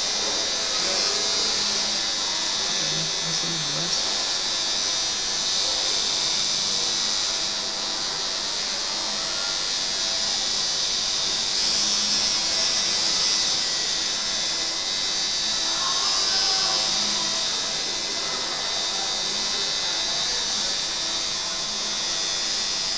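Tattoo machine buzzing steadily as its needle works ink into the skin of a leg.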